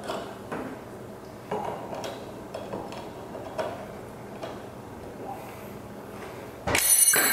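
Light metallic ticks and clicks of a snap ring being worked off a transfer case gear assembly by hand. Near the end a sudden much louder clatter sets in.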